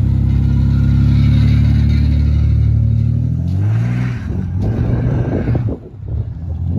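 Pickup truck engine running close to the microphone with a steady note, then revving up about three and a half seconds in as the truck pulls away, followed by rougher, noisier engine and road sound.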